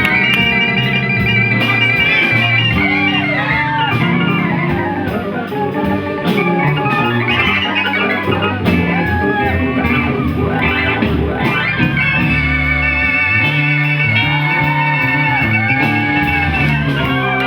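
Live band playing an instrumental passage: organ holding chords and guitar lines bending in pitch, over bass and drums.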